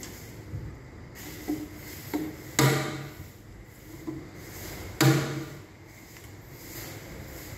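Clamp frame and lever of a vacuum forming machine being worked by hand: a few light clicks, then two sharp metal clacks about two and a half seconds apart, each ringing briefly.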